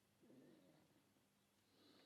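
Near silence: room tone with a faint steady hum, and two soft faint sounds, one about a quarter-second in and a shorter one near the end.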